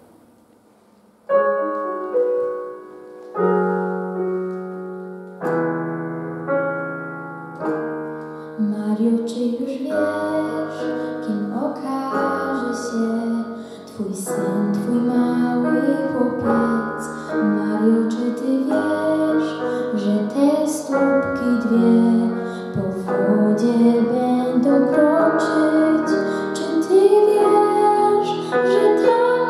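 Electric keyboard playing slow held piano chords. About eight seconds in, a girl starts singing a slow song over the keyboard accompaniment.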